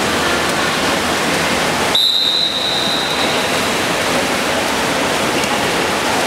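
Steady wash of water splashing from many swimmers, with one referee's whistle blast about two seconds in, a single steady high tone held for just over a second.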